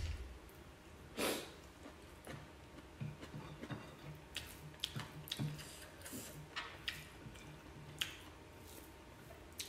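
Soft eating sounds: chewing, with scattered small clicks and smacks as fingers pick up rice from the plate, one stronger smack about a second in.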